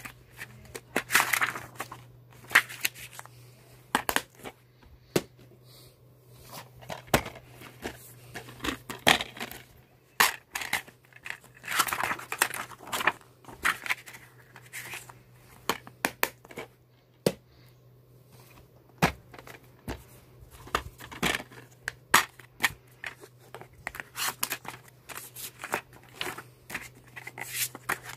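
Plastic DVD cases and VHS tapes being handled: cases clicking and snapping open and shut and paper inserts rustling, in many short sharp clicks and brief rustles.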